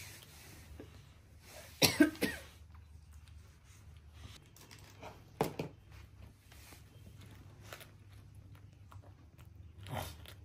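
Coughing: a loud cluster of three quick coughs about two seconds in, two more about five and a half seconds in, and a softer single cough near the end.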